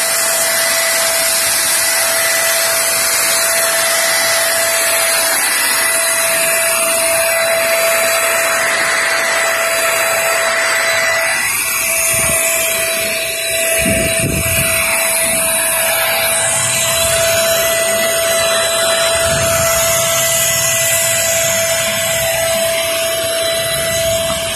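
Total 350 W handheld electric paint spray gun running steadily while spraying thinned paint, its motor giving a constant mid-pitched whine over a loud rushing hiss. A few low thumps come about halfway through.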